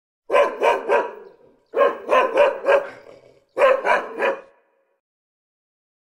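Dog barking in three quick runs of three, four and three barks.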